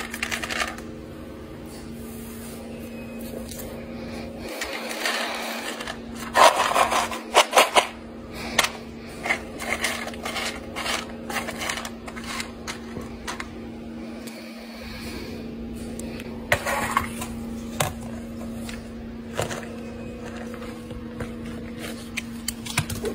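Dry pet kibble rattling and clattering in a plastic container as a hand scoops and stirs it, in irregular bursts of sharp clicks. A steady low hum runs underneath.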